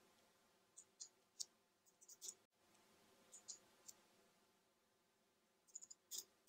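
Faint, irregular clicks of a computer keyboard and mouse as a value is entered, coming in small clusters over quiet room tone.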